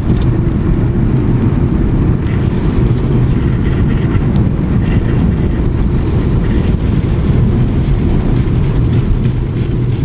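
Wind rushing over the microphone and road noise from a bicycle riding along a street: a loud, steady low rumble.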